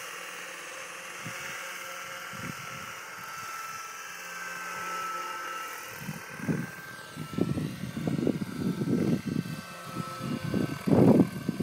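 Radio-controlled scale Bell 206L helicopter flying, its motor and gears giving a steady high whine whose pitch shifts briefly about seven seconds in. From about six seconds in, wind buffets the microphone in growing gusts.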